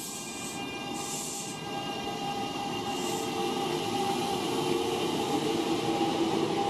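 Kintetsu red-and-white electric commuter train running along the station platform, getting louder, with a motor whine rising slightly in pitch in the second half.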